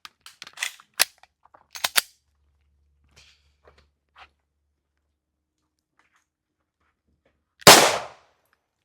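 A single loud gunshot from a firearm on a shooting range, about three-quarters of the way in, with a short echoing tail. It is one of two shots that both missed the target. A few fainter sharp cracks and knocks come about one and two seconds in.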